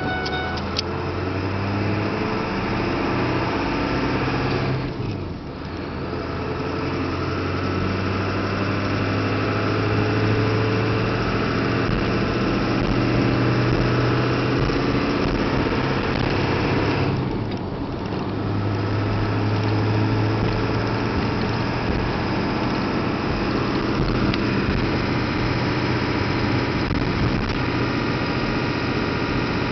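7.3-litre diesel truck engine running while driving, a steady drone whose level dips briefly twice, about five seconds in and again around seventeen seconds.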